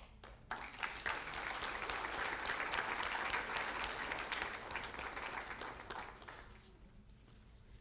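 Audience applauding: a few scattered claps, then applause swelling about a second in and dying away about six and a half seconds in.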